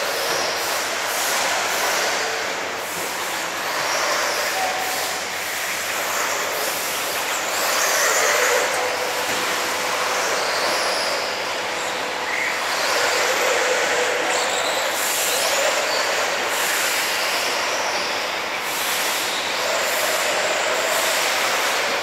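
Several 1/8-scale electric RC buggies running on a dirt track: a steady high-pitched whine of motors and drivetrains with tyre noise, now and then a single car's whine rising and falling as it speeds up and slows.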